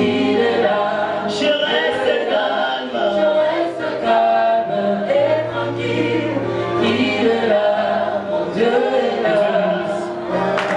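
Gospel choir singing a slow song in several voices over long held low bass notes.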